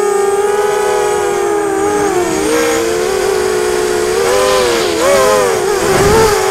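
ZMR250 quadcopter's Emax MT1806 brushless motors and Gemfan 5030 propellers whining, heard from the onboard camera. The pitch holds steady, then wavers up and down from about four seconds in as the motor speeds change, with a rush of wind noise just before the end.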